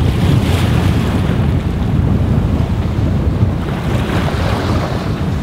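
Strong gusty wind buffeting the microphone, with choppy waves washing around a sailboat's bow at anchor. The wind came up unforecast and raised a couple of feet of chop.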